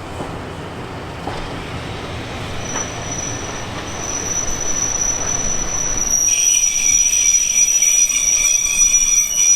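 A train running on the rails with a low rumble, then a high-pitched metal squeal from its wheels that sets in about three seconds in and grows louder, with several more shrill tones joining after about six seconds.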